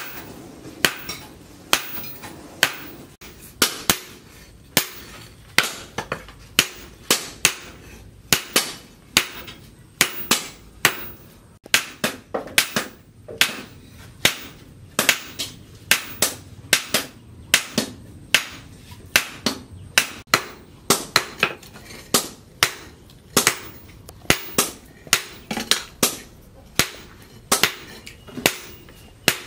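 Hand hammer striking a red-hot leaf-spring steel blank on a steel post anvil, sharp ringing blows at a steady pace of one to two a second, now and then in quick pairs, as the cleaver blade is forged out.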